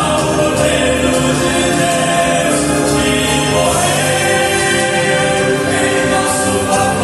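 Vocal quartet singing a gospel hymn in harmony, holding long notes that change every second or so.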